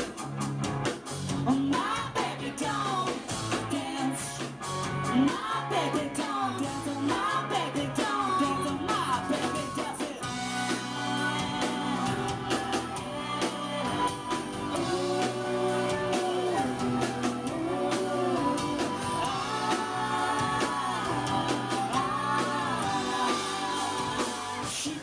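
Indie rock band playing live: electric guitar, bass, drums and keyboard, with several voices singing the melody and harmonies.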